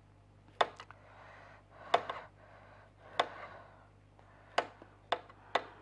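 Kitchen items being handled on a work counter: about eight sharp, irregular knocks and clicks, with soft rustling between them.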